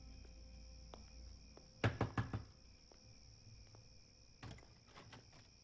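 Four quick knocks on a wooden front door about two seconds in, then a few fainter clicks near the end, over crickets chirping steadily.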